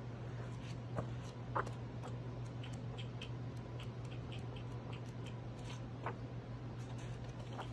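Handling of a cookbook's pages as they are flipped: scattered small ticks and clicks over a steady low hum, with a couple of sharper clicks about a second and a half in.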